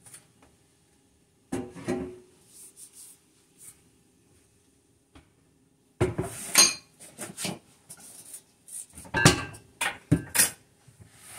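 Stainless steel stand-mixer bowl and beater knocking and clinking as the mixer is taken apart and the bowl lifted off its base. There are a couple of knocks about two seconds in, then a busier run of sharp, ringing metallic clinks from about six seconds on.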